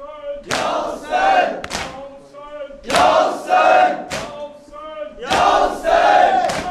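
A crowd of men chanting a mourning lament in unison while beating their chests in time, with a sharp slap about every second and a quarter. This is Shia matam for Muharram.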